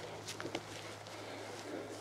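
Footsteps through grass and dry dead grass: a few soft crunches and rustles, over a faint low steady hum.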